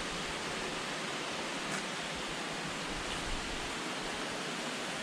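Steady rush of flowing water, with a faint click a little under two seconds in.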